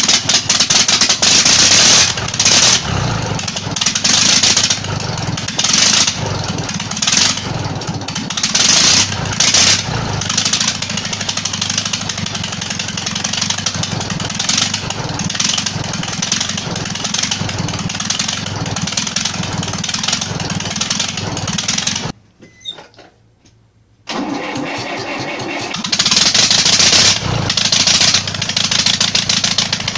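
Zetor 6245 tractor's diesel engine running roughly with its intake manifold removed, uneven, with loud surges every second or two, from a fuel system that was drawing in air. The sound drops out for about two seconds a little past twenty seconds in, then the engine is heard running again, now with new injector tips.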